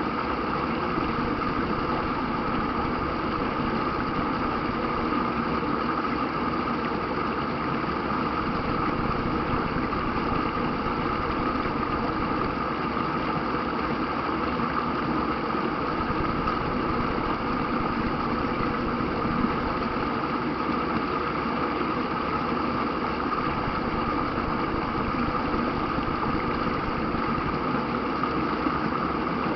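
River rapids rushing: a steady, unbroken roar of running water.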